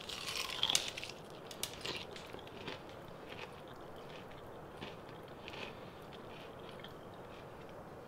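Crunchy deep-fried chicken coating crackling and cracking as pieces are pulled apart by hand: a dense run of crunches in the first second, then scattered smaller crackles that thin out.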